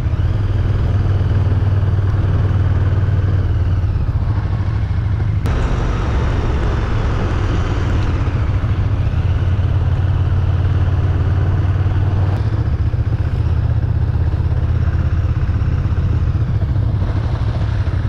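KTM 1290 Super Duke R V-twin engine running steadily at low road speed, heard from onboard, mixed with wind and wet-road noise. The sound changes abruptly about five seconds in.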